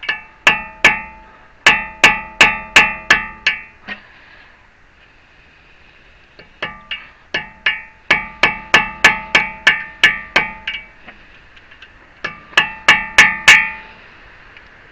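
Hammer blows on a metal chisel, knocking the staked lip of a CV axle nut out of its groove so the nut can be undone. The blows come in three runs of quick strikes, about three a second, each ringing briefly.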